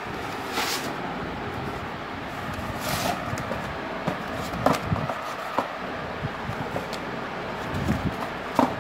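Cardboard tripod box handled by hand: scattered scrapes, rustles and light knocks as it is picked up and turned over, over steady background noise.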